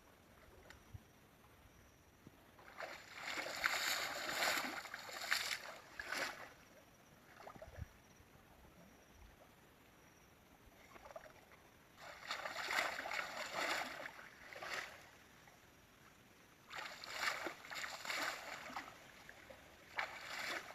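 Water splashing and sloshing in four bursts of a few seconds each, with quieter pauses between.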